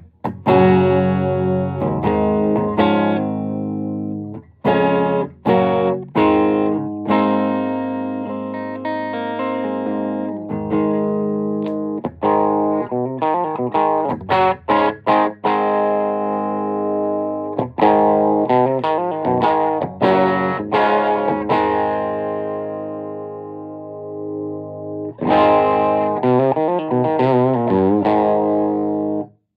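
Electric guitar played through a vintage Magnatone M14 stereo tube amp: chords struck and left to ring out, with short pauses between phrases. Near the end the notes waver quickly in a warbling vibrato before the playing stops abruptly.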